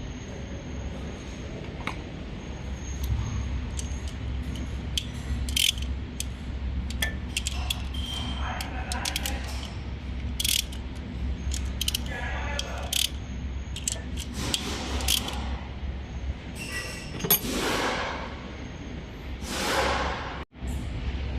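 Hand tools clicking and clinking against metal engine parts, with a few ratchet-like runs and short scraping swishes over a steady low workshop hum.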